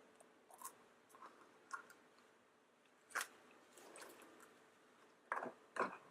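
Soft, scattered clicks and rustles of hands handling and opening a plastic surprise egg filled with confetti. The loudest click comes about three seconds in, and two more come near the end.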